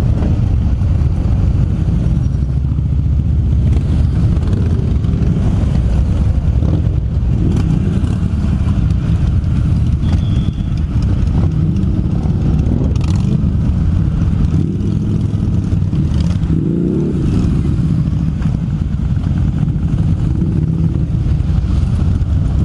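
Several cruiser motorcycle engines running together in a steady, loud low rumble. One engine revs briefly, up and back down, about three-quarters of the way through.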